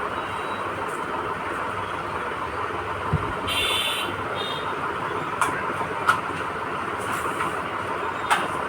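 Steady background hiss with a few light clicks of small computer parts being handled, and a short rustle about three and a half seconds in, as an NVMe SSD and its mounting nut are fitted to a motherboard.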